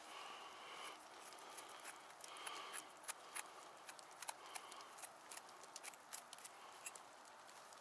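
Faint footsteps through wet forest undergrowth, with irregular small cracks and ticks of twigs and leaves underfoot; the sharpest crack comes about three seconds in.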